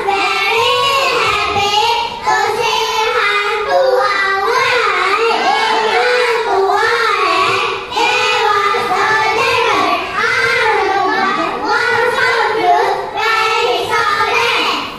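A group of young children singing together in unison, continuously and fairly loud.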